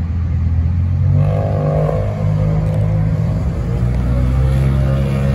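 Heavy excavator diesel engine revving under hydraulic load as it works to lift an overturned excavator. The revs rise about a second in, settle, and rise again near the end.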